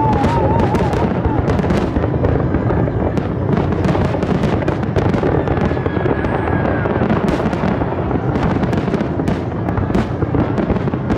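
Aerial firework display at a finale-like pace: a dense, continuous barrage of shells bursting in rapid, overlapping bangs.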